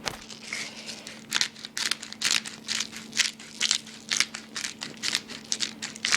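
Black pepper being dispensed from its container onto the floor in a string of short, rasping strokes, about two a second, over a faint steady hum.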